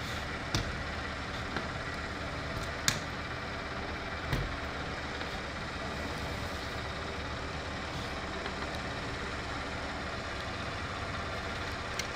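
Engine of a ride-on pitch roller idling steadily, with a few short sharp knocks over it in the first half.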